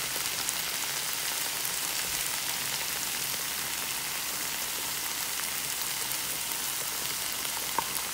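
Ground beef and onions sizzling steadily in a frying pan while being stirred with a wooden spoon. A single sharp tap comes near the end.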